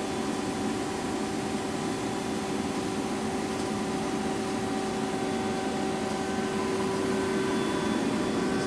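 Steady electrical and mechanical hum with a constant whine of several fixed tones, typical of a powered-up CNC horizontal boring mill idling with its hydraulics and cabinet fans running.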